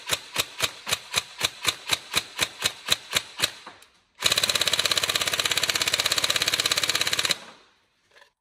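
Tokyo Marui 416 NGRS recoil-shock airsoft electric rifle firing a quick string of semi-auto shots, about four a second. After a short pause it fires one full-auto burst of about three seconds that stops abruptly, then gives a faint click near the end.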